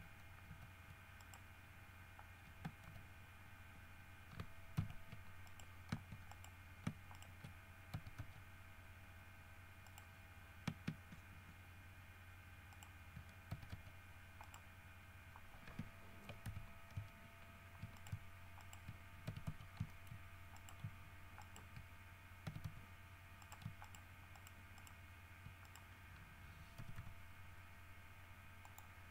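Faint, irregular clicks of a computer keyboard and mouse as the Blender user works, some coming in quick runs. Under them runs a low, steady hum.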